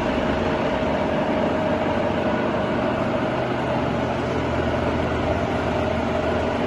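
Sachman bed milling machine's universal milling head with its spindle running at a raised speed: a steady mechanical running sound with a constant whine.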